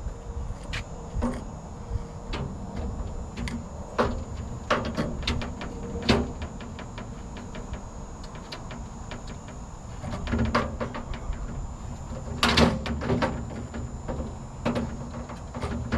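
Irregular metallic clicks, knocks and clanks of aluminum tool box lids and parts being handled and worked on, with a louder burst of clatter about twelve seconds in, over a low steady rumble.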